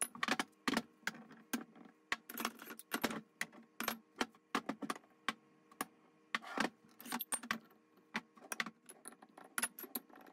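Steel press sleeves and cups from a bush removal kit clinking and knocking together as they are handled and tried against a control arm's ball joint: many sharp, irregular metallic clinks.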